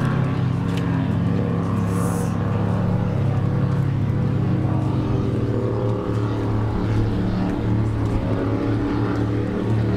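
Racing powerboat engines droning steadily, several engine tones at once shifting slightly in pitch, with a brief hiss about two seconds in.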